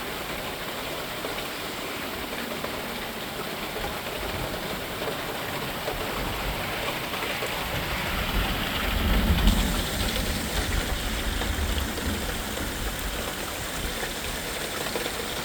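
Steady rain falling, with a low rumble that swells near the middle and fades a few seconds later.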